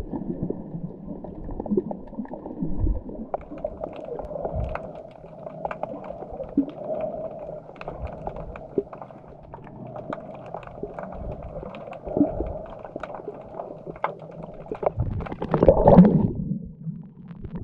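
Muffled underwater sound of a snorkeller's camera below the surface: water sloshing and gurgling with many small clicks and bubble pops, and a louder burst of bubbling about fifteen seconds in.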